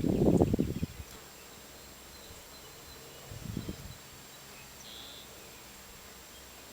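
A bee buzzing faintly and steadily at the flowers, after a burst of rustling in the first second.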